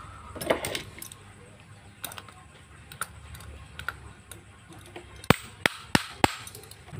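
Clicks and light knocks of a metal LED-bulb heatsink being pressed into the bulb's plastic body, ending with four sharp taps in quick succession near the end.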